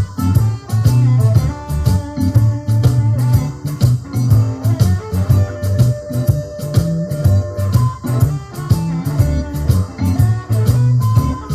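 Blues-rock music with electric guitar, bass and drums.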